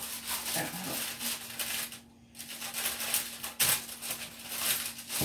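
Rustling and small clicks of things being handled, with a sharper click about three and a half seconds in, over a steady low hum.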